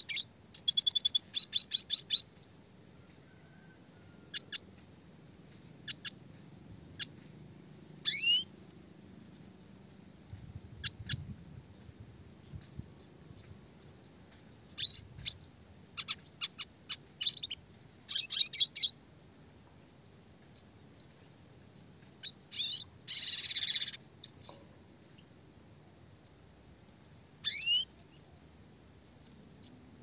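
Red siskin singing: a fast run of short clipped notes at the start, then scattered sharp chirps and quick sweeping whistles, with a harsh buzzy note about three quarters of the way through.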